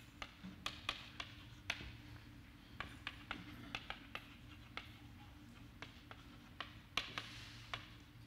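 Chalk tapping and clicking on a blackboard as words are written: an irregular run of light, sharp clicks, a few each second, over a low steady hum.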